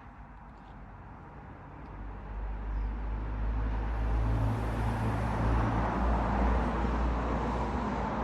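A motor vehicle's low engine rumble and road noise, growing louder about two seconds in and then staying loud.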